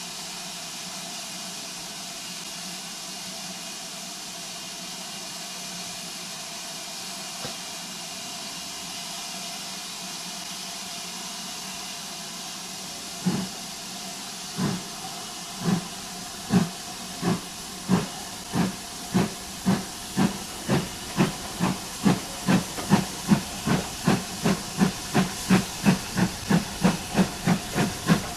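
GWR 2-8-0T steam tank locomotive No 4270 standing with a steady hiss of steam, then starting away about halfway through: slow exhaust beats that steadily quicken to about three a second as the train picks up speed.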